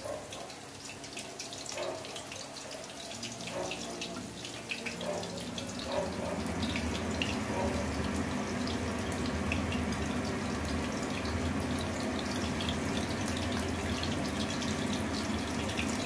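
Prawn kofta balls deep-frying in hot oil in a kadai: steady sizzling with fine crackles, growing louder about six seconds in.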